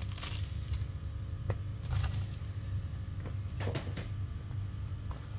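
Scattered light knocks and rustles of cardboard and plastic packaging being handled, the loudest knock a little past halfway, over a steady low room hum.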